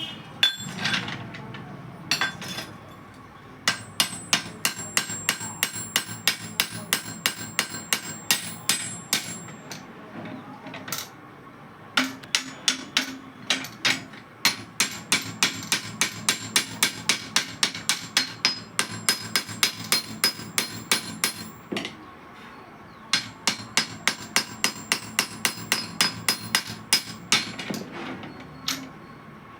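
Hammer blows on metal, about three to four a second in three long runs with short pauses between, each blow ringing.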